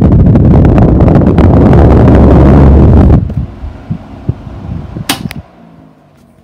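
Strong airflow from a 1960s Pifco Whirlwind desk fan buffeting the microphone, which cuts off suddenly about three seconds in. After that the fan's running sound is much fainter and fades, with a single sharp click about five seconds in.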